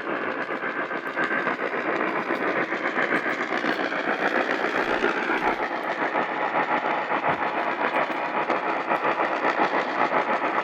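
Steady crackling static from an AM radio, a rough hiss that flickers rapidly in level.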